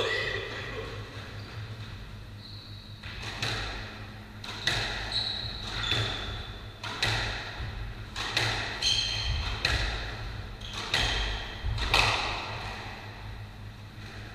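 Squash rally: the ball is struck by racquets and smacks against the walls about once a second, each hit echoing in the court, with trainers squeaking on the wooden floor in between. The hits stop about two seconds before the end.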